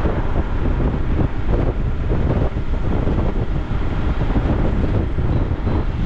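Heavy wind buffeting the microphone over the steady rumble of a moving vehicle.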